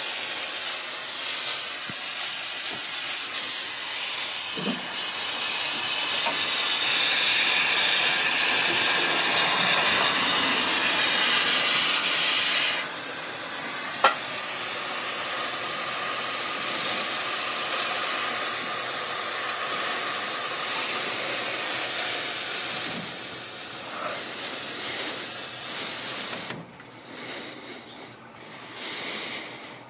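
Steam hissing steadily from the open cylinder drain cocks of a Stuart 5A steam engine and a Southworth steam pump as their cylinders preheat, with one sharp click about halfway through. The hiss drops to a much fainter level near the end.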